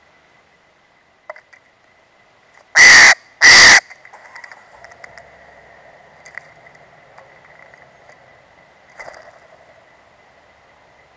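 Steller's jay giving two loud, harsh calls close by, about half a second apart, followed by a few faint taps.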